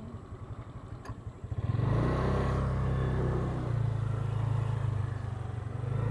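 Motorcycle engine running slowly with evenly spaced firing pulses, then pulling away about a second and a half in and running steadily and louder.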